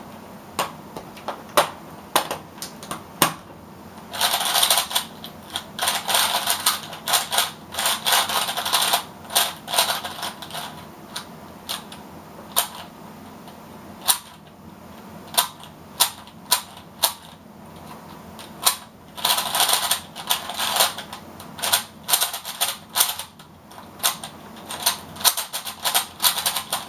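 Hard plastic pieces of a MoYu HuanYing speedcube clicking and snapping together during assembly, in sped-up footage. Scattered sharp clicks, with several dense runs of rapid rattling clicks.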